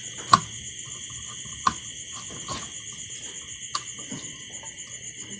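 A few sharp clicks of a screwdriver working the screws on a motorcycle headlight's LED board, the first two the loudest. Insects chirr steadily and high-pitched throughout.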